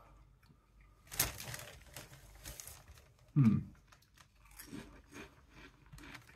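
A paper crisp bag crinkling as a hand reaches into it, then potato crisps crunching as they are bitten and chewed, in short crackly bursts. A brief low sound falling in pitch, louder than the rest, comes near the middle.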